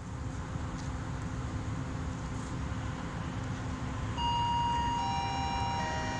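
PKP Cargo ET22 electric locomotive running light into the station, a steady low rumble. About two-thirds of the way through, a station public-address chime sounds three descending notes that ring on over it; the chime is the loudest sound.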